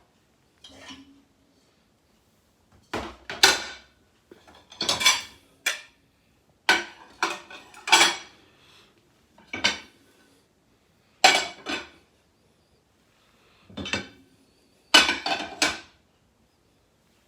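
Dishes and cutlery clinking and clattering in short bursts every second or two, with quiet gaps between, as clean items are taken out of a dishwasher and put away.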